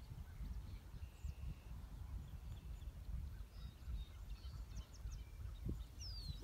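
Low, uneven wind rumble on the microphone with faint, scattered bird chirps, and a short downward-sliding bird whistle near the end.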